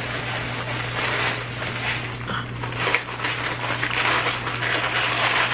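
Packing wrapping crinkling and rustling continuously as a large glass candle jar is unwrapped by hand, with many small crackles.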